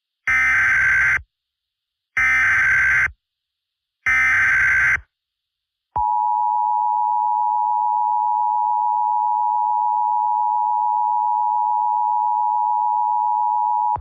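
Emergency Alert System alert tones: three one-second bursts of SAME header data tones, a second apart, then the two-tone EAS attention signal held steady for about eight seconds before cutting off sharply.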